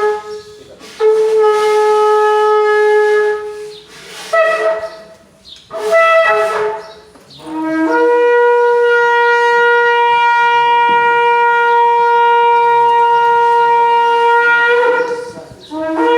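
Shofar blasts. A held note of about three seconds, two short higher blasts, then one long note of about seven seconds that starts low and steps up in pitch, with another blast starting near the end.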